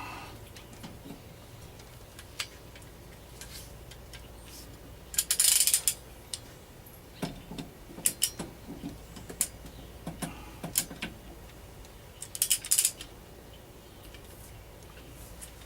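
Torque wrench ratchet clicking in two short bursts of rapid clicks, about five and twelve seconds in, with scattered single clicks and knocks of metal tools in between.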